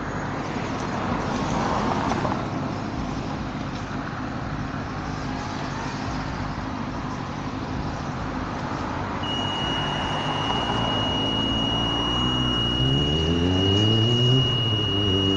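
Road traffic noise, with a car engine rising in pitch and getting louder in the last few seconds as it accelerates. A steady high-pitched whine joins about nine seconds in.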